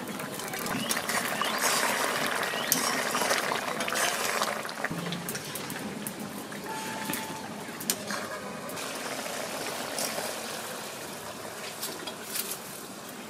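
Egg curry bubbling in an iron kadai over a wood fire, a steady watery hiss that is strongest in the first few seconds, with a ladle stirring and a few sharp clinks of metal on the pan.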